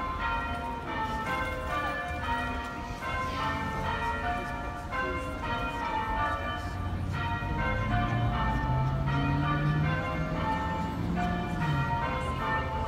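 Church bells ringing changes: several bells struck one after another in a continuous, overlapping sequence. A low steady hum sounds under them from about two thirds of the way through.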